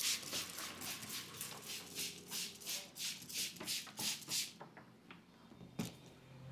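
Brisk rubbing strokes of a barber's massage on a client's head or back, about three to four a second, which stop after four seconds or so; a single sharp click near the end.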